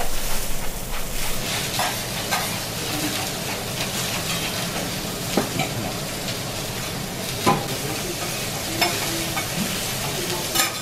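Steak searing on a teppanyaki iron griddle: a steady frying sizzle, with a few sharp clicks of a metal spatula against the hot plate as the meat is turned.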